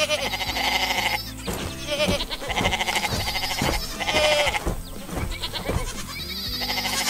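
Sheep bleating several times in a row, each call a quavering 'baa' lasting about half a second to a second, over light background music.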